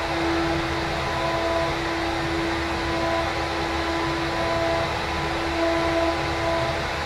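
A CNC router running: a steady whir with a steady whine, and a higher tone that comes and goes several times.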